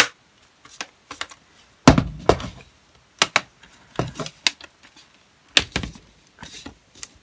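Plastic top cover of an HP Mini 110 netbook being pressed onto the chassis: a string of sharp, irregular plastic clicks and snaps as its clips lock into place, with a heavier knock about two seconds in.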